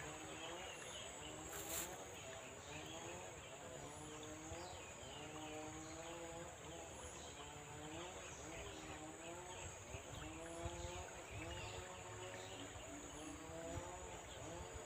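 Faint outdoor ambience: a distant voice rises and falls continuously over a light hiss and a steady high-pitched drone.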